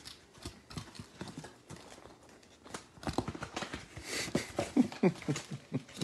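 Foil-lined paperboard pizza carton being folded and creased by hand into a microwave crisping platform: scattered cardboard clicks and crackles, busier in the second half with short creaks that fall in pitch.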